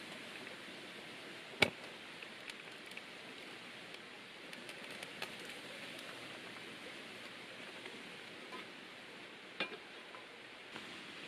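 Steady soft outdoor hiss of rain and forest ambience, with a sharp knock about a second and a half in. Near the end comes a lighter clatter of clicks as an aluminium mess tin is set down on a small pocket stove.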